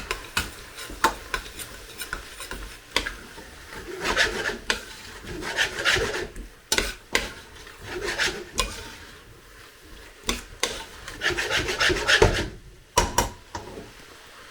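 A spoon stirring and scraping chicken, peppers and onions around a pan as spice is mixed in, in irregular scraping strokes with sharp knocks of the spoon against the pan.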